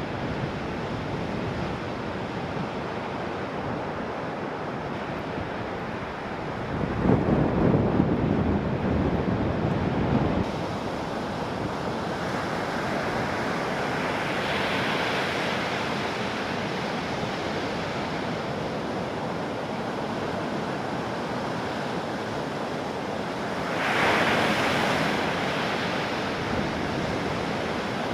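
Heavy typhoon surf breaking and washing, a steady roar of waves with wind on the microphone. Louder surges come about seven seconds in, lasting a few seconds, and again briefly later on.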